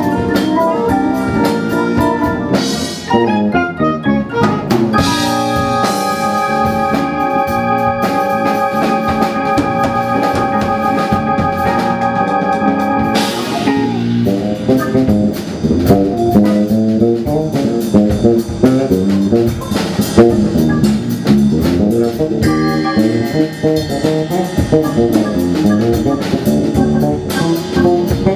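Live jazz-funk band playing: electric guitar, electric bass, drum kit and keyboard. About five seconds in, a sustained chord is held for several seconds over the drums before the busy groove picks up again.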